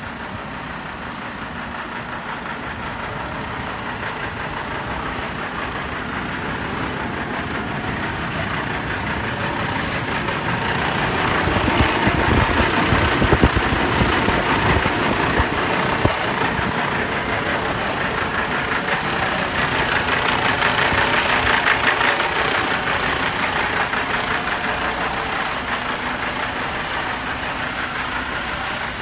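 Diesel engine of a Mercedes-Benz Arocs 4142 concrete mixer truck idling steadily. It grows louder near the middle, when heard up close at the open engine bay, then eases off.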